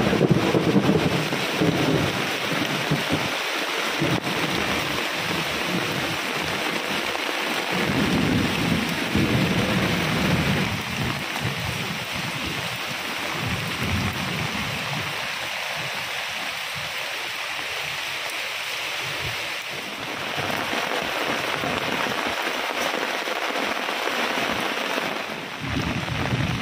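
Heavy rain pouring steadily, with rolling thunder rumbling low in several long swells over the first ten seconds or so. After that the rain carries on mostly alone.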